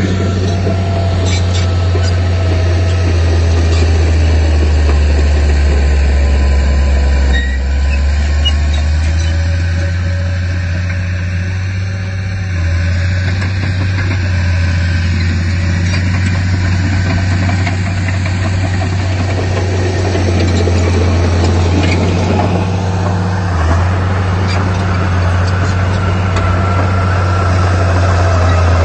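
Heavy diesel engine of construction machinery running steadily with a deep, low drone.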